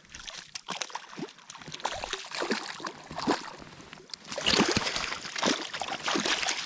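Irregular water splashing and dripping, heaviest about four to six seconds in: a hooked trout thrashing at the surface as it is brought to hand.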